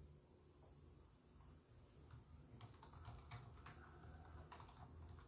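Faint, irregular tapping clicks of fingers working a smartphone, a few a second, beginning about halfway through, over a low steady hum.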